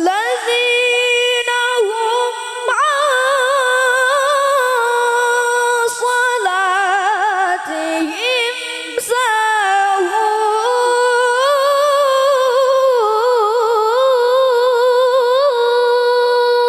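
A girl reciting the Quran in the melodic tilawah style into a microphone: long held notes embellished with quick wavering trills, broken briefly twice midway.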